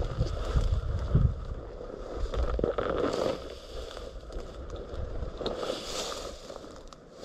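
Wind buffeting the microphone in gusts during the first second or so, then a rustling hiss that swells and fades twice.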